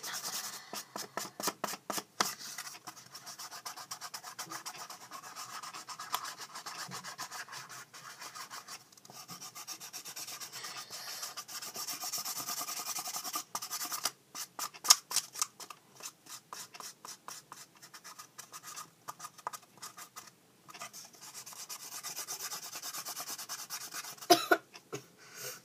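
Fast, scratchy back-and-forth strokes of a felt-tip marker colouring the end of a cardboard toilet paper tube. Sharper knocks come about 15 seconds in and again near the end.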